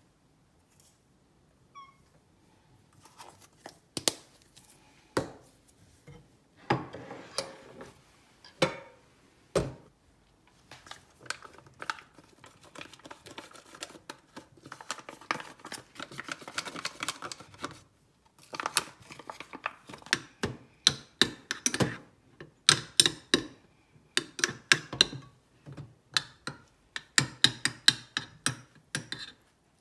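Metal spoon clinking and scraping against small ceramic dishes as raw chicken cat food is scooped out of its pouch and mashed, with the plastic pouch crinkling in between. A dense run of quick clinks comes near the end.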